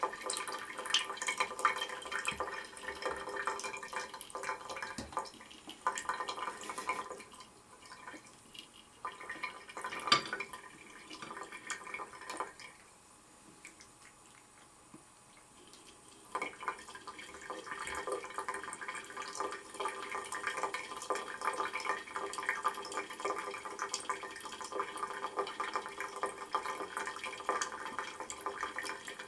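Tap water running in a thin stream and splashing unevenly into a sink. It drops to a much quieter trickle about halfway through, then comes back at full splash. There is one sharp splash or knock about ten seconds in.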